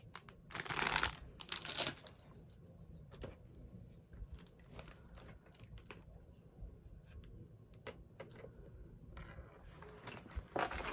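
Packaging crinkling as small gift-box items are handled, twice, about half a second in and again near the end, with scattered small clicks and taps of little objects in between.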